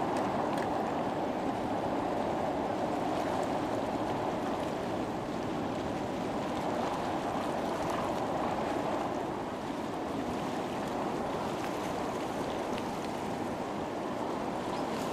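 Steady rushing of seawater, an even wash with no change in level.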